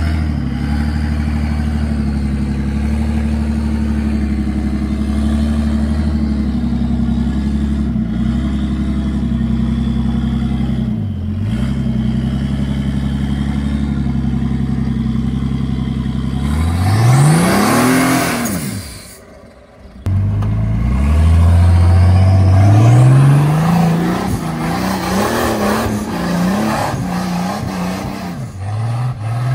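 Engine of a rock-crawling Jeep Cherokee buggy on big tires running steadily at low revs while crawling over rock ledges. About two-thirds of the way through it revs hard, rising and falling. After a brief gap it revs up again several times on a steep rock climb.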